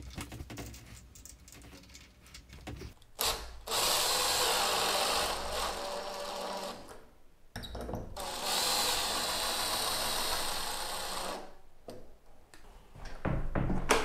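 Cordless drill driving screws into a pocket door lock's plate in two runs of a few seconds each: the first about three seconds in, the second about eight seconds in. Faint handling clicks come before them.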